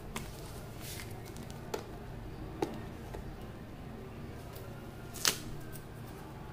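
Packing tape being picked at and peeled off a cardboard mailing tube by hand: a few short crackles and clicks, the loudest about five seconds in, over a steady low hum.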